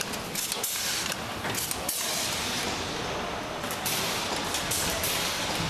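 Factory machinery running in a PC case production line, a dense mechanical clatter with scattered clicks and knocks.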